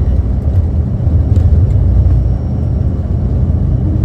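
Airliner cabin during the takeoff roll: a loud, deep, steady rumble of the jet engines at takeoff power and the wheels running fast on the runway, easing slightly about two-thirds of the way through.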